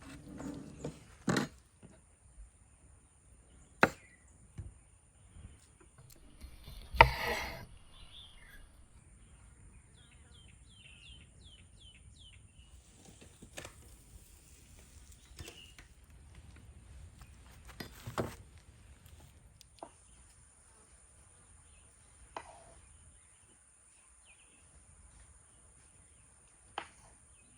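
Sparse knife strokes on a cutting board, one sharp knock every few seconds, during food preparation. A bird gives a quick run of chirps about ten seconds in.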